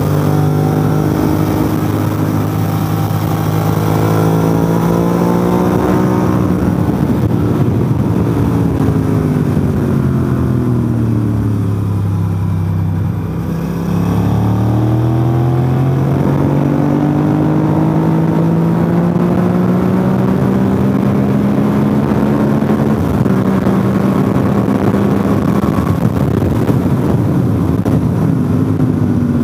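Motorcycle engine under a rider at speed, over steady wind rush. Its pitch falls as the bike slows into a corner about halfway through. It then climbs again under acceleration, drops once as it shifts up, and keeps rising toward the end.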